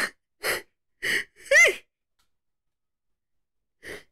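A man's wheezing laughter: four breathy gasps in under two seconds, the last breaking into a high squeal, then one more short gasp near the end.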